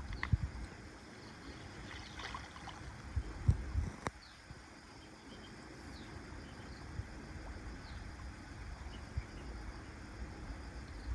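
Dull low knocks and bumps on a small fishing boat while a net is paid out, over a steady low rumble. There is one sharp click about four seconds in.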